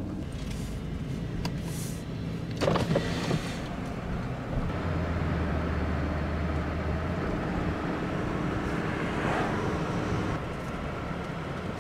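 Pickup truck driving along a road, heard from inside the cab: steady engine and road noise, with a couple of brief knocks about three seconds in.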